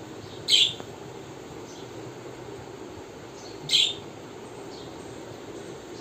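Budgerigar chirping: two short, loud, high chirps about three seconds apart, with a few faint chirps between them.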